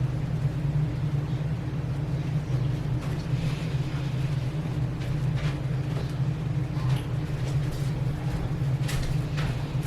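Steady low hum, with a few faint clicks and rustles in the last few seconds.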